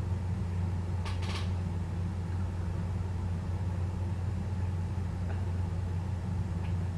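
Steady low electrical hum, the loudest sound throughout. About a second in there is a brief scratchy rustle, and a few faint ticks follow later, as a wood mouse moves among the seeds and husks in the feeder box.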